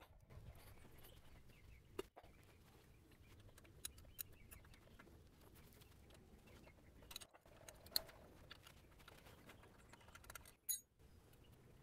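Near silence broken by a few faint metallic clicks of a combination wrench on the fuel lift pump's line fitting, the sharpest about eight seconds in.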